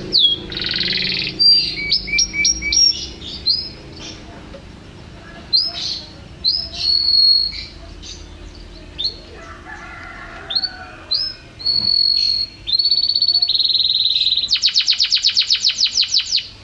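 Domestic canary in full, vigorous song: a run of high whistled notes and rising slurs, then held trills, closing in a fast rattling trill of about eight notes a second.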